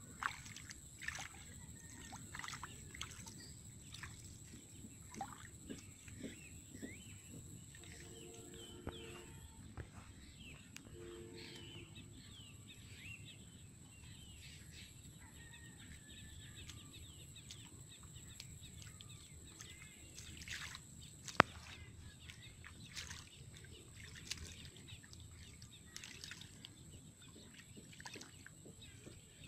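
Quiet outdoor ambience of birds chirping, with the scattered squelches and splashes of hands and bare feet working through shallow muddy water and grass. A single sharp click comes about two-thirds of the way through and is the loudest sound.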